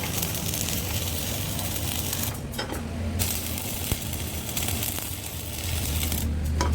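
Electric arc welding: a steady crackling hiss over a low hum, breaking off briefly about two and a half seconds in and again near the end.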